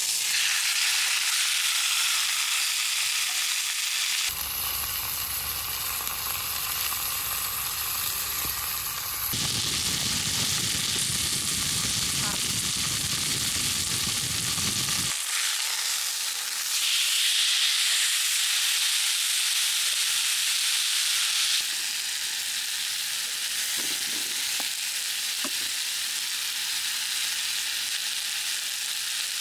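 Food sizzling as it cooks over heat. The hiss changes abruptly several times, at cuts between short clips.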